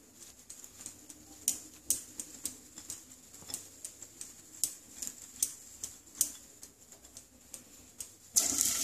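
Soft, irregular clicks and taps as boiled cauliflower florets are tossed by hand in a bowl. Near the end a loud sizzle starts suddenly as the florets go into hot mustard oil in the pan.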